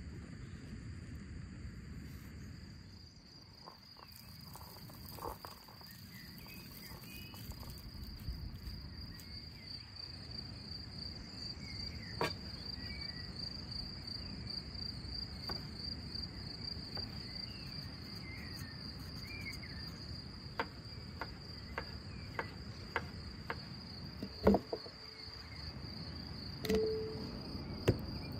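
Insects trilling steadily at a high pitch, a rural outdoor chorus. From about two-thirds of the way in come scattered sharp clicks and knocks of a knife and produce on a wooden cutting board, the loudest a few seconds before the end.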